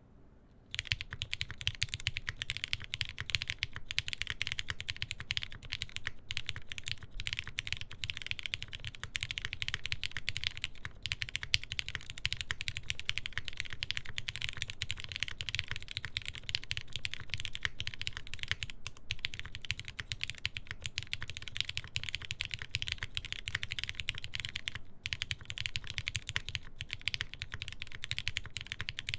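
Continuous steady typing on a TGR Jane v2 CE custom mechanical keyboard: linear Cherry MX Black switches lubed with Krytox 205g0, with 60g springs and switch films, in a full aluminium plate under GMK keycaps. It starts about a second in, as a dense run of keystroke clicks with a low thud under each.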